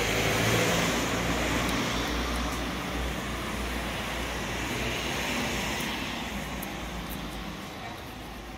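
Street traffic: a motor vehicle passing, loudest about half a second in and then slowly fading away.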